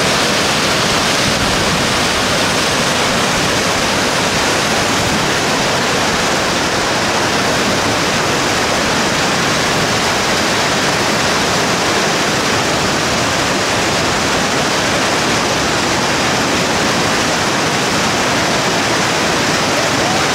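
Loud, steady rush of whitewater: a river rapid churning, with no break or change.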